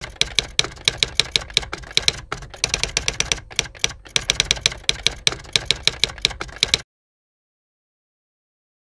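Keys being typed in quick succession, several sharp clicks a second with a couple of short pauses, cutting off abruptly about two seconds before the end.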